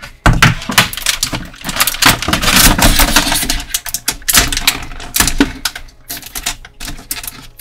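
Quick, irregular clicks and crinkles of small plastic action-figure accessories and their taped packaging being handled, with a denser stretch of crinkling about two seconds in.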